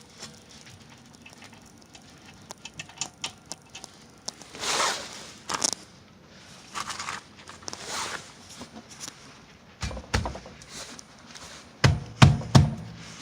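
Hand work on a car's rear brake: scattered light metal clicks, a couple of scraping sounds around five and eight seconds in, and a cluster of heavy knocks near the end.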